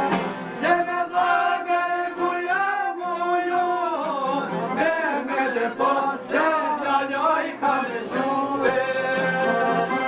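Male voice singing an Albanian folk song in a wavering, ornamented line over strummed long-necked lutes (çifteli and sharki), with accordion accompaniment; the singing drops out near the end, leaving the instruments.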